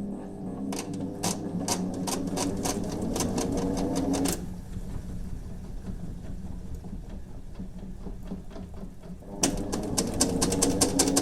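Hitachi NW-6AZ washing machine's non-inverter, belt-driven motor switching on and spinning the empty tub up, its hum rising in pitch over a rapid clicking knock that quickens. The motor cuts out after about four seconds, leaving a quieter hum, and comes on again near the end. The clicking is the abnormal noise of a well-worn machine.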